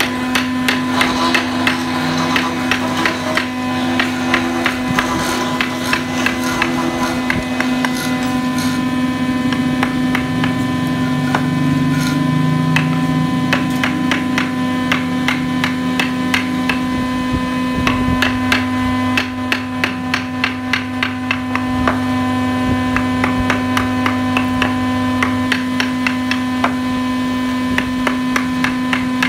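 A carving chisel struck over and over as it cuts a floral relief into a wooden board, giving quick, regular taps of about three a second over a steady hum.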